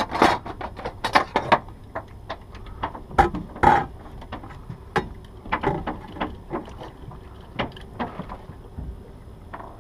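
Irregular knocks and clicks of hands and gear working on a small fishing boat. They are busy for the first few seconds, then thin out to scattered taps over a low steady background.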